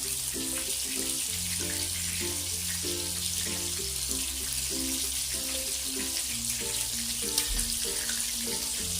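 Background music of short repeated notes over a bass line, with a steady high hiss of prawns frying in hot oil beneath it.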